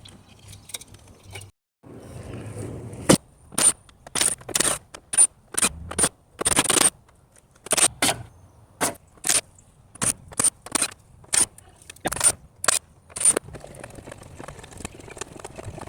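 A run of about twenty sharp metallic knocks and clanks at irregular intervals, as parts of a treadmill are taken apart, after a few seconds of faint low rustling.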